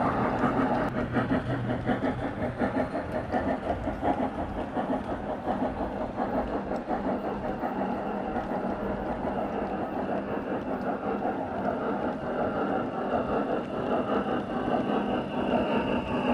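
7mm-scale model goods train rolling past close by: a steady rattle of the wagons' wheels running over the track.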